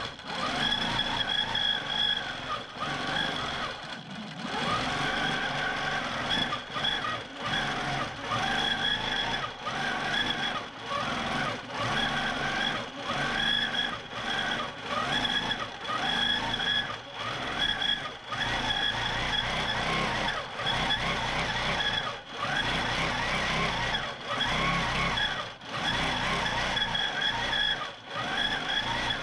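Q'nique 19 longarm quilting machine stitching in stitch-regulated mode: a steady high whine with a lower motor tone that rises and falls as the machine speeds up and slows down, with short dips every second or two.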